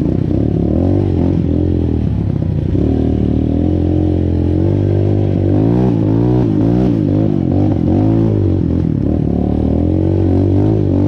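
Motorcycle engine running while riding, its note rising and falling over and over from about four seconds in as the throttle is opened and eased.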